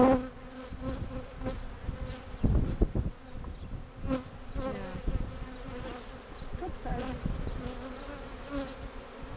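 Honeybees buzzing around an open hive as a steady hum, with a couple of short knocks about two and a half seconds in.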